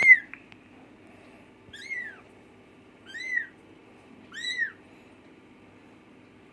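A young kitten mewing four times: short, high cries that rise and fall in pitch, spaced one to two seconds apart, the first the loudest.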